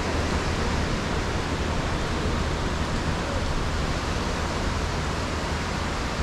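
Steady rush of surf breaking and washing up the beach, with wind buffeting the microphone as a low rumble.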